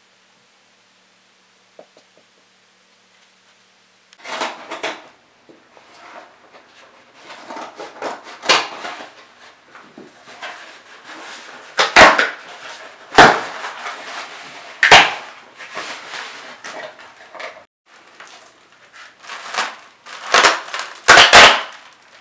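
A cardboard shipping box being torn open by hand: packing tape ripped off and the flaps pulled back, irregular scraping and rustling of cardboard with several sharp, loud tearing snaps. The first few seconds are near silence.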